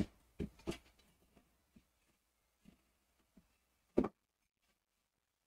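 Handling noises: a handful of short knocks and thuds as things are moved and set down, the loudest right at the start and about four seconds in.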